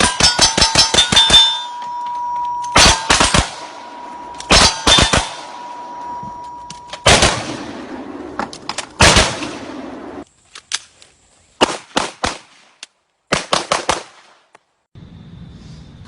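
Gunfire: a fast string of about eight shots a second, then several short bursts of three or four shots and a few single shots, with echo after each. A steady ringing tone lingers for several seconds after the first string.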